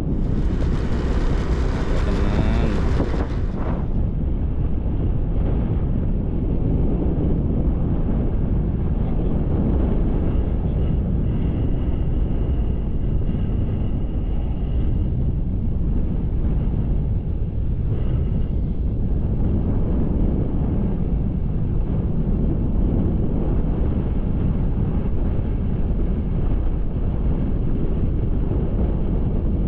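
Steady rumble of wind on the microphone, mixed with engine and tyre noise, while riding a motorcycle along a road. A brighter hiss comes briefly at the start.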